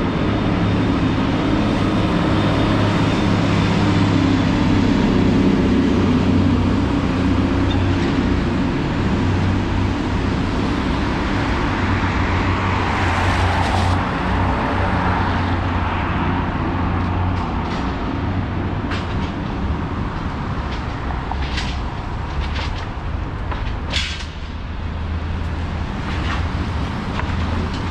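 City street traffic: a steady low rumble of passing cars, with one vehicle's tyres hissing by on the wet road about 13 seconds in. Several short sharp ticks come in the second half.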